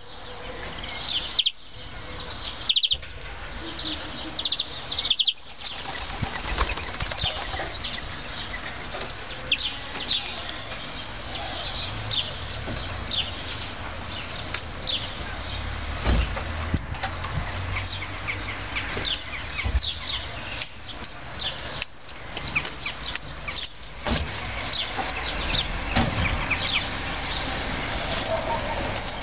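Small songbirds chirping over and over in short high calls, over a steady low rumble, with wing flutters as birds come and go at a balcony seed feeder.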